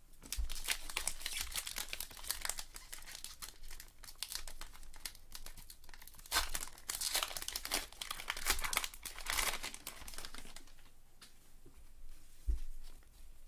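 Crinkling and tearing of a Topps Gypsy Queen trading-card pack wrapper being opened by hand, with cards handled in between. The crinkling is loudest about 6 and 8.5 seconds in.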